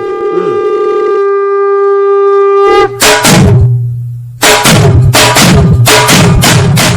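A long held note on a horn-like wind instrument, then from about three seconds in a run of loud, fast drum beats: a dubbed musical sound effect.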